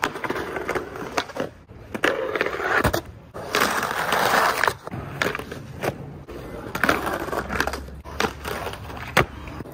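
Skateboards at work: urethane wheels rolling on concrete and trucks grinding along a curb box, the longest and loudest grind starting about three and a half seconds in, with several sharp clacks of boards popping and landing.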